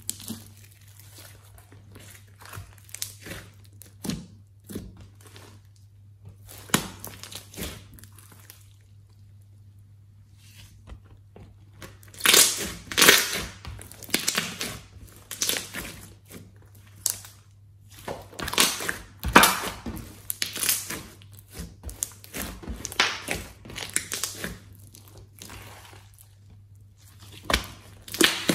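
Hands squeezing and kneading a large mass of glossy slime, giving irregular wet squishes and crackles as it is folded and pressed. The sounds are sparse for the first several seconds, nearly stop a little past the middle of the first half, then come thicker and louder from about twelve seconds in.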